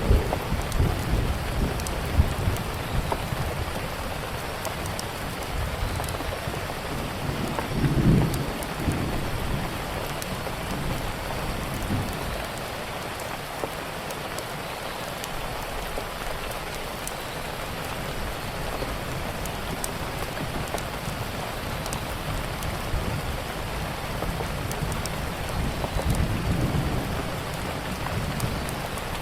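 Steady rain falling, with scattered faint sharp ticks. Low rumbles of thunder swell near the start, about eight seconds in, and again near the end.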